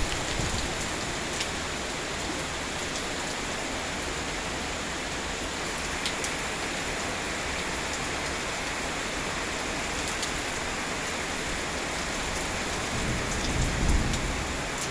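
Steady rainfall, with a few sharp ticks of drops landing close to the phone. A low rumble of thunder swells near the end.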